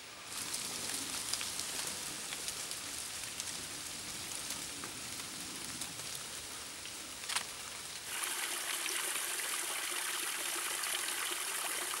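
Steady rushing hiss of running water outdoors. Its tone and level change abruptly twice, just after the start and about eight seconds in, with a single sharp click shortly before the second change.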